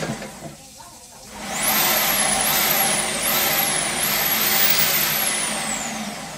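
An electric high-pressure water jetter drives a drain-cleaning jet hose, with a rushing hiss. Its motor whine starts about a second in and climbs steeply. It surges up and down about four times, then winds down in pitch near the end.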